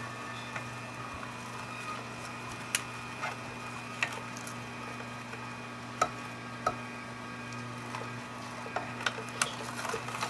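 Omega 8004 low-speed single-auger masticating juicer running with a steady motor hum, broken by irregular sharp cracks and snaps as fruit and vegetables are crushed by the auger, more of them near the end.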